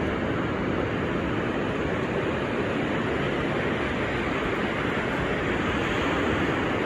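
Steady noise of ocean surf with wind rumbling on the microphone.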